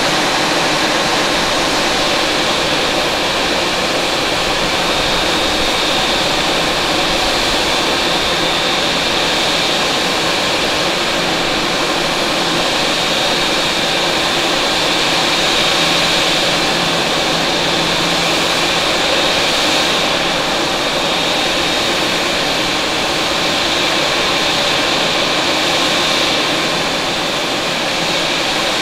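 Jet engines of a Boeing 777 airliner running at taxi power: a steady whine with a high tone over an even rushing hiss.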